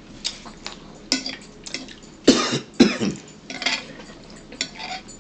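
A fork clicking and scraping on a plate during a meal, with two loud short coughs about half a second apart a little over two seconds in.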